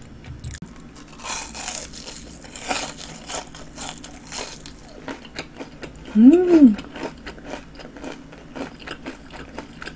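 Crunchy bites and chewing of a panko-breaded fried jumbo shrimp close to the microphone: several loud crunches, then many small crackles of the crisp batter. About six seconds in there is a short hummed 'mm' that rises and falls.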